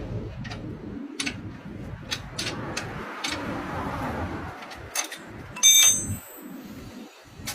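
Several light metallic clicks and knocks, then, about five and a half seconds in, a short, bright, bell-like metallic ring that is the loudest sound and dies away within about half a second.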